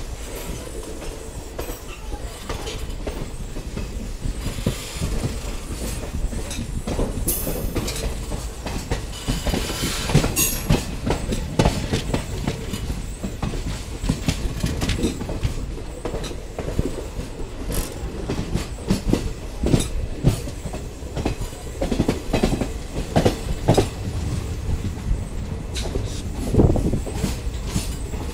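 Passenger train coaches running on the track, heard from an open door of a moving coach: a steady rumble with the wheels clicking over rail joints. A brief high-pitched noise comes twice, about seven and ten seconds in.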